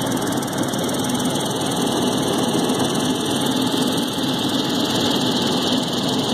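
Helicopter turbine and rotor noise heard inside the passenger cabin in flight: a loud, steady, unbroken drone.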